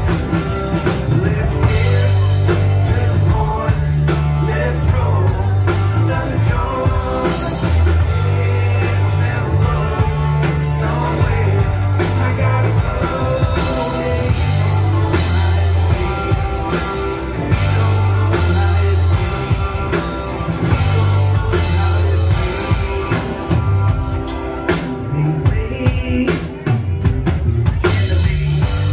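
Live rock band playing through a PA: electric guitars, bass and drum kit with a steady beat, and a man singing lead.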